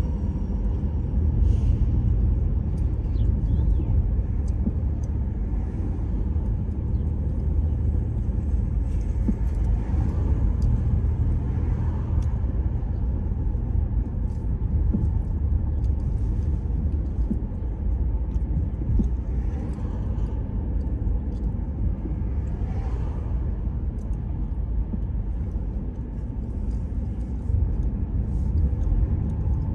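Steady low rumble of a car being driven on city streets, engine and tyre noise, with a few brief whooshes along the way.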